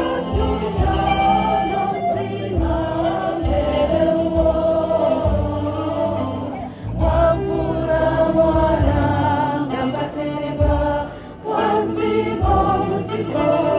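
Choir singing a church hymn, with short breaks between phrases.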